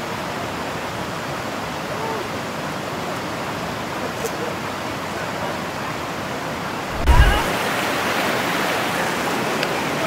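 Steady rush of flowing river water. About two-thirds of the way through there is a short low thump, and after it the rushing is louder and brighter.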